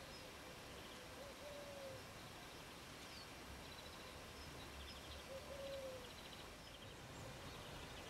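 Faint songbird calls around a winter bird feeder: several short, high chirping trills and ticks, with a lower arched note heard twice, over a quiet outdoor hiss.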